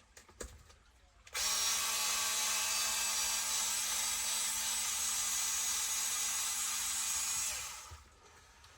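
A handheld electric power tool starts abruptly and runs steadily at one speed for about six seconds, with a loud hiss over a low motor hum, then winds down.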